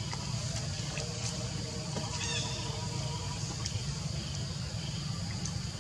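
Outdoor forest ambience: a steady high hiss over a low rumble, with a few short chirping animal calls, the clearest about two seconds in.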